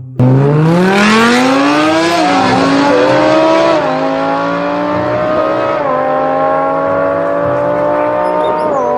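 Race car engine accelerating hard, starting suddenly and rising in pitch, with a drop in revs at each gear change, three times.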